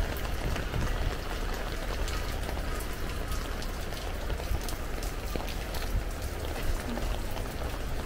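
Steady rain falling, with many individual drops ticking close by over a low rumble.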